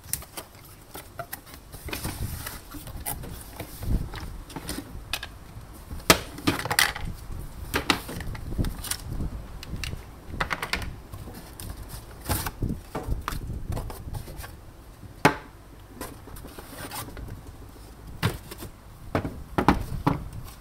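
Ambiano egg cooker being unpacked from its cardboard box: cardboard flaps scraping, and the cooker's stainless base, clear plastic lid and plastic trays knocked and set down on a wooden table in an irregular string of knocks and scrapes.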